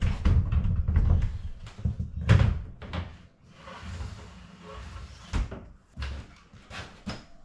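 Irregular knocks and thuds from hand demolition work, with a longer scraping sound about four seconds in.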